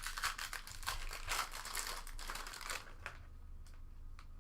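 Plastic wrapper of a baseball card pack crinkling as it is handled and opened, for nearly three seconds, followed by a few light clicks.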